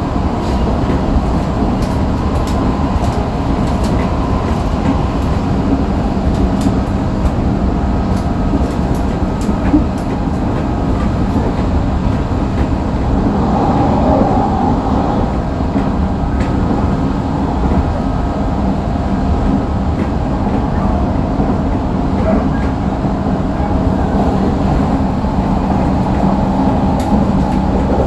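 Running noise inside a motor car of an Odakyu 3000 series electric train (Mitsubishi IGBT-VVVF control, six-pole induction motors) at speed between stations: a steady rumble of wheels on rail with an unchanging hum and a few light clicks.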